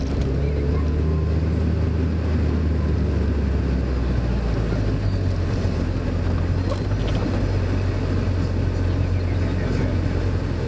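Mazda Roadster's four-cylinder engine running under way, with tyre and road noise, heard from on board the car. The engine note steps up in pitch about halfway through.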